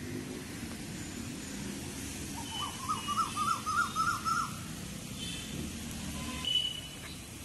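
A bird calling: a run of about eight short rising notes, each a little higher than the last, over a steady low background rumble.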